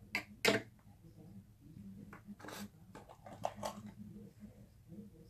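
Two sharp light knocks about a third of a second apart as a plastic toy doll on its plastic stand is picked up off a tabletop, followed by faint scattered handling clicks over a low steady hum.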